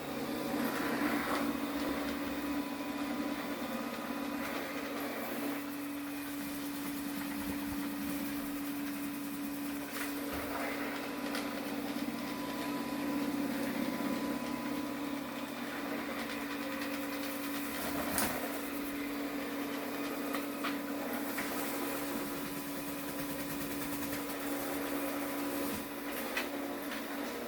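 LG robot vacuum running: a steady motor hum with a few light clicks along the way, stopping near the end.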